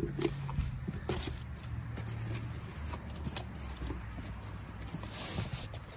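Cardboard packaging handled and rustled as a hand rummages through a box of dividers: scattered small scrapes and clicks, with a louder rustle about five seconds in, over a low steady hum.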